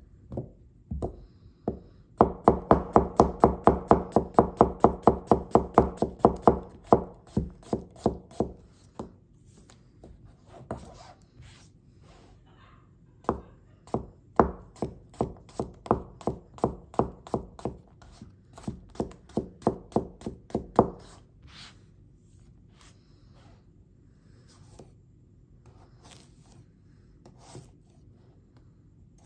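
Honyaki gyuto slicing a raw potato thinly, each stroke ending in a crisp tap of the blade on the cutting board. A quick even run of taps at about four a second, a pause, a second run, then scattered single taps near the end.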